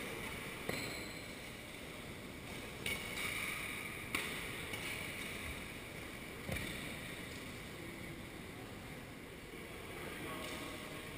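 Badminton rackets striking the shuttlecock during a rally: four sharp hits a second or two apart, over the steady noise of a large sports hall.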